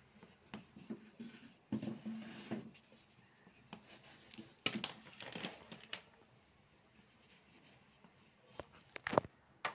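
Drawing on paper with black colour: intermittent short strokes and rubbing sounds of the drawing tool on the paper, with a couple of sharp clicks near the end.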